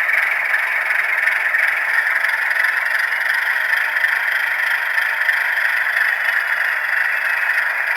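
Baldwin diesel engine sound from a model locomotive's Tsunami sound decoder, running steadily through its small onboard speaker with no low end.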